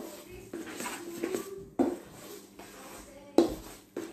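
Runny batter being mixed by hand in a stainless steel bowl, with three sharp knocks against the bowl about a second and a half apart.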